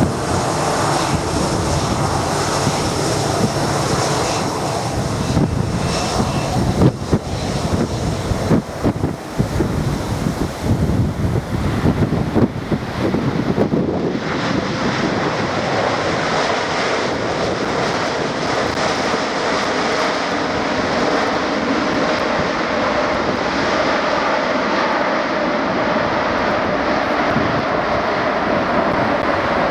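Boeing 747-8F's GEnx turbofan jet engines running, a dense rumble with loud irregular bumps in the first half. About fourteen seconds in, the highest hiss drops away and the sound settles into a steadier rumble with a faint whine.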